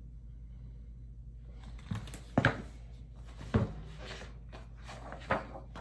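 Pages of a picture book being handled and turned: paper rustling from about a second and a half in, with three sharp knocks as the pages and cover are handled.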